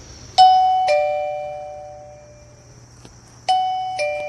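CallToU wireless caregiver pager receiver sounding a two-note ding-dong chime twice, the second note of each pair lower, each note ringing out and fading.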